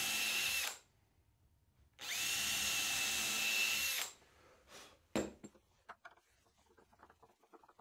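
Cordless drill boring pilot holes into wood through a steel hinge's screw holes: a run that stops under a second in, then a second run of about two seconds, each a steady whine. A few light clicks follow.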